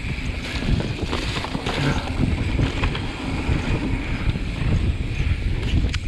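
Wind buffeting the microphone of a moving ride, a heavy uneven rumble with scattered short knocks and rattles.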